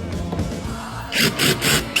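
Background music; about a second in, a power tool starts up in several short, loud bursts.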